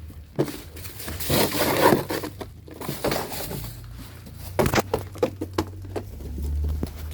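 Goats eating corn: crunching and rustling with many sharp clicks and knocks, over a low rumble.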